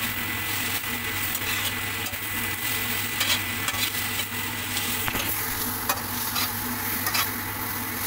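Chopped vegetables and scrambled egg sizzling in oil in a metal wok while a spatula stirs and tosses them, with irregular scrapes and knocks of the spatula against the pan.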